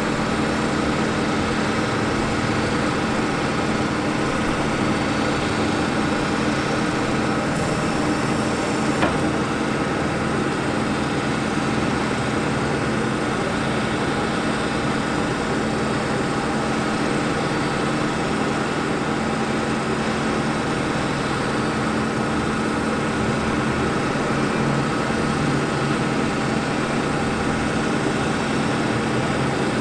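Ford F450's 6.4L Power Stroke diesel engine running steadily, driving the hydraulics that move the aerial boom, with a steady hum and whine. One brief click about nine seconds in.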